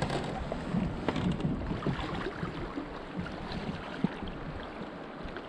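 Flowing river water with splashing and sloshing as a person in waders steps out of a kayak into the shallows, with scattered knocks against the kayak hull; a sharp knock about four seconds in.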